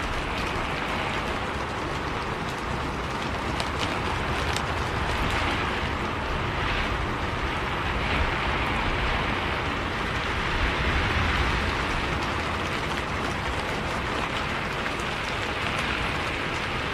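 Rain falling on a moving bus, heard from inside: a steady hiss of rain with scattered drop ticks over the low, even rumble of the bus on the road.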